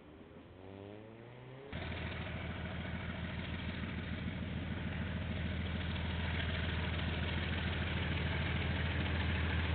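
Diesel locomotive engine running. It starts faint with a rising pitch, then about two seconds in cuts in abruptly much louder as a steady low drone that slowly grows louder.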